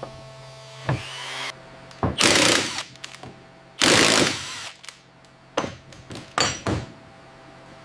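A power tool run in several short bursts, each lasting under a second, over a steady electrical hum.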